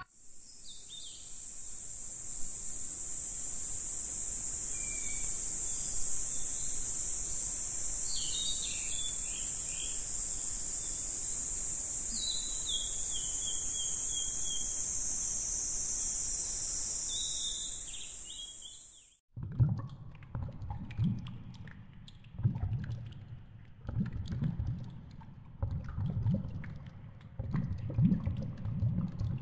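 A steady high-pitched drone with birds chirping over it. About two-thirds of the way through it cuts off and is replaced by muffled low rumbles and knocks of water, heard from the underwater viewing tunnel of the polar bear pool.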